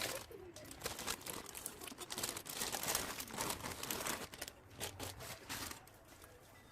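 Packaging material crinkling and crumpling under hands in irregular bursts, settling down near the end.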